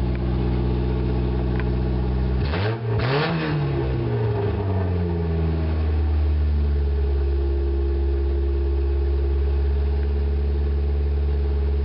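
Freshly repaired Acura engine running a short while after its cold start, now firing in the correct order. About two and a half seconds in, the throttle is blipped once and the revs rise and fall back, then it settles to a steady idle.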